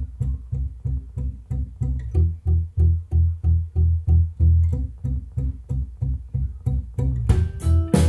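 A rock song played over Canton hi-fi speakers driven by an Audio Research LS25 preamp and McIntosh MC452 power amplifier, heard in the room. A plucked bass line pulses several times a second, and near the end the full band comes in with cymbals and higher sustained notes.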